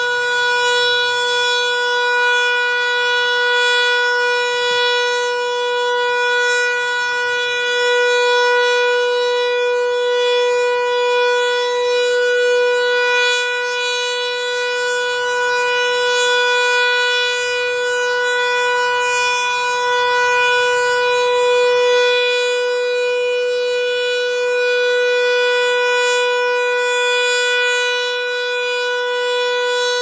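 American Signal T-112 battery-powered (DC) electronic siren sounding a steady alert tone: one unchanging pitch with a stack of overtones, its loudness swelling and easing a little.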